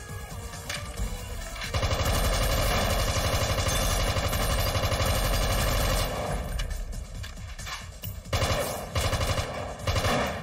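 Rapid automatic gunfire: one long unbroken burst from about two seconds in until about six seconds, then a few shorter bursts of shots near the end.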